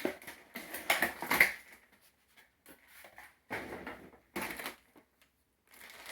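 Action-figure packaging being opened by hand: several short bursts of rustling and scraping from cardboard and plastic.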